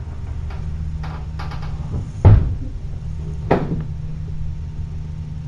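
A few light clicks, then a heavy thump a little over two seconds in and a sharper knock about a second later, over a steady low hum.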